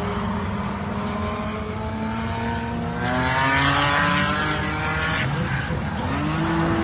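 Car engine revving hard while drifting, its note climbing and dropping several times. A rush of noise swells for a couple of seconds in the middle.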